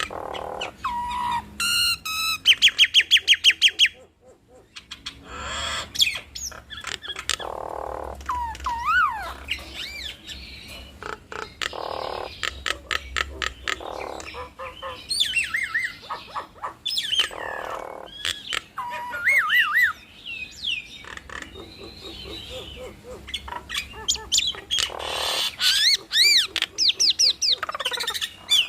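Two jalak nias birds singing together in a loud, varied duet. The song mixes whistled notes that slide up and down, a fast run of repeated notes about two seconds in, and harsh, scratchy chattering calls.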